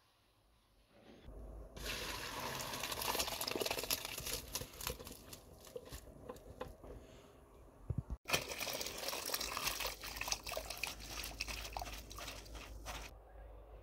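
Boiled rice and its cooking water poured from a pot into a plastic colander, the water splashing and draining through into a basin below, starting about a second in. After a short break about eight seconds in, more water streams and splashes down into the basin.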